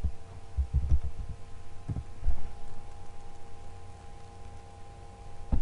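Dull thumps and clicks from a computer keyboard and mouse being used, with a sharper knock about two seconds in and another near the end, over a steady hum.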